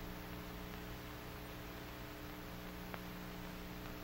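Steady background hum and hiss of an old film soundtrack, with one faint click about three seconds in.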